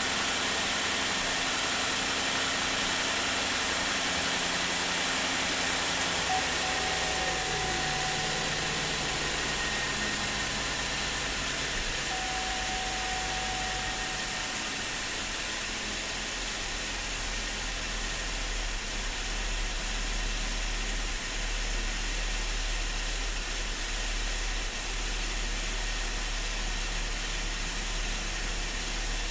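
2009 Chevrolet Traverse's 3.6-litre direct-injection V6 idling steadily while warming up after a cold start, the condition in which this engine shows an intermittent cylinder misfire.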